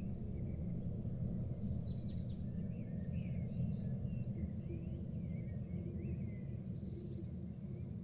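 Birds chirping faintly in short, scattered calls over a steady low background rumble.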